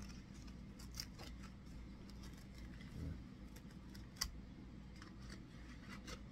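A plastic yogurt cup and its lid being handled and opened: scattered small clicks and crinkles, the sharpest about four seconds in, over a low steady room hum.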